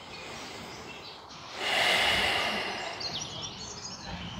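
A person's deep, audible breath: a rush of air lasting about a second and a half, starting about a second and a half in.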